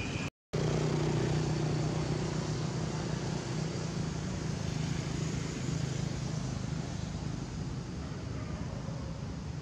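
A low, steady engine hum over outdoor background noise, slowly fading. The sound drops out completely for a moment just after the start.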